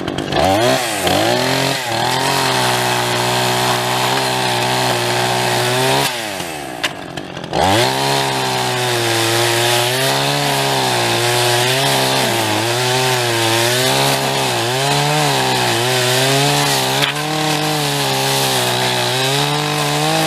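Chainsaw revving up and cutting wood, its pitch wavering as it bogs and recovers in the cut. About six seconds in it drops back briefly, then revs up again and keeps cutting.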